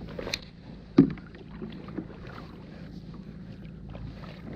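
Ambient sound aboard a fishing kayak: a steady low wash of water and wind, with a sharp knock about a second in and a few lighter taps of gear against the hull.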